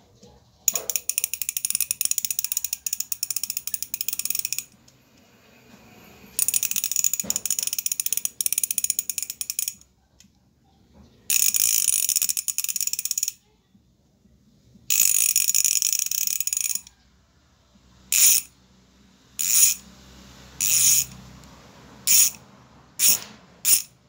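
Maxzone Stroke 1.0 rear bicycle hub's three-pawl freehub turned by hand, its pawls clicking so fast they blend into a loud, high ratcheting buzz. It comes in four runs of two to four seconds each, then six short bursts near the end.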